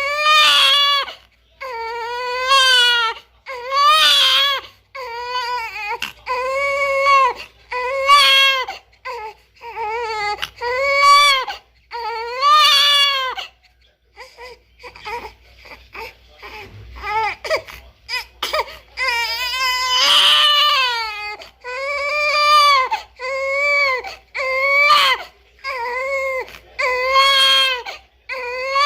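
Newborn baby crying in repeated wails, each about a second long and held near one pitch, with short gasps for breath between them; for a few seconds in the middle the cries break into shorter, softer whimpers before the full wails resume.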